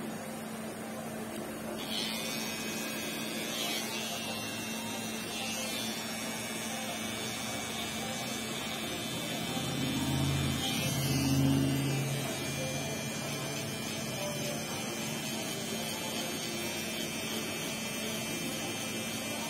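Cordless T-blade hair trimmer running with a steady buzz and a thin high whine as it cuts close along the hairline around the ear.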